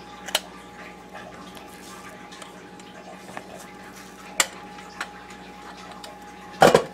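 Kitchen utensils and containers clicking and tapping: one sharp click just after the start and a couple more a few seconds later, over a faint steady hum. A short, louder rustle comes near the end.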